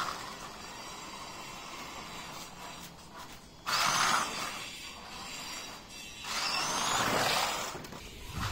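Electric RC truck's motor whining and its tyres rushing over stone paving in two spurts of acceleration, the first starting suddenly about three and a half seconds in, the second about six seconds in.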